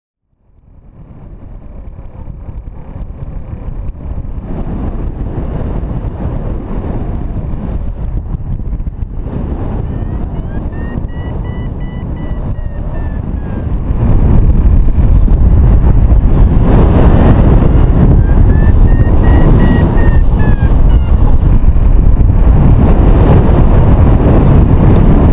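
Wind rushing over a paraglider-mounted camera's microphone in flight, fading in from silence over the first few seconds and jumping louder about halfway through.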